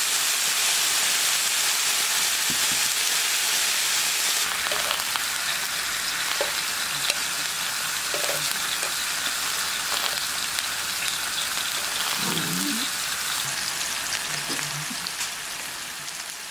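Sliced duck roast and king oyster mushrooms sizzling on a hot griddle: a steady frying hiss that slowly fades near the end.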